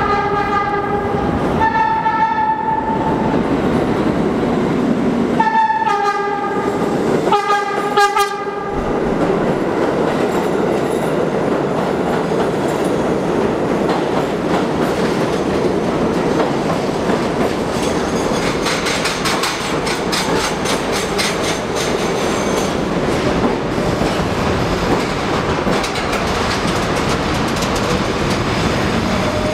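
R32 subway train sounding its Arnine-style whistle in four blasts over the first eight seconds or so, then the train running into the station and slowing along the platform, its wheels and cars rolling past in a steady loud rumble.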